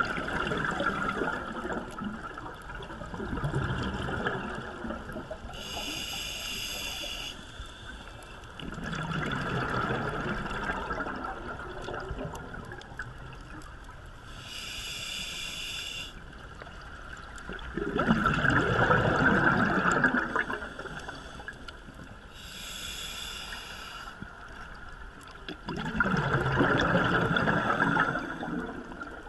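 Scuba diver breathing through a regulator underwater in a slow cycle about every eight seconds. Each breath in is a short hiss from the regulator, three times in all, and each breath out is a longer, louder burst of bubbling exhaust bubbles.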